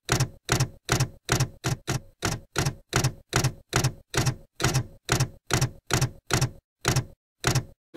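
Typewriter keystroke sound effect: a steady run of clacks, one per letter of text being typed onto the screen, about three to four a second with dead silence between, spacing out near the end.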